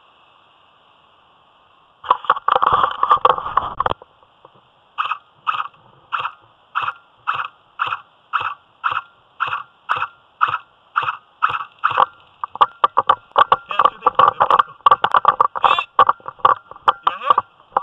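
Footsteps of a person walking through grass, brush and dry leaves, crunching at about two steps a second, with busier stretches of rustling as they push through the undergrowth.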